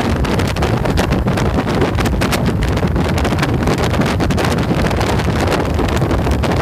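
Motorcycle riding at road speed with wind buffeting hard on the handlebar-mounted camera's microphone, gusting unevenly over a steady low rumble of engine and road.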